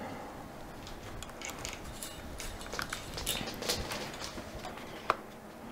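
Small clicks and rustles of handling on a workbench over a steady room hum, with one sharp click about five seconds in.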